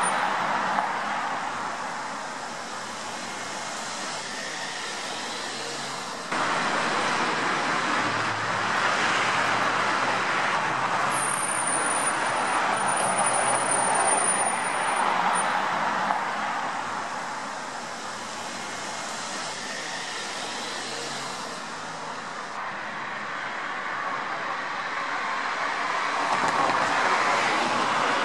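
Street traffic: cars driving past one after another, their tyre and engine noise swelling and fading in turn.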